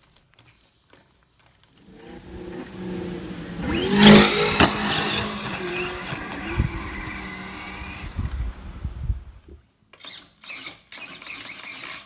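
An RC monster truck's electric motor revving up and down, loudest about four seconds in. Several short noisy bursts follow near the end.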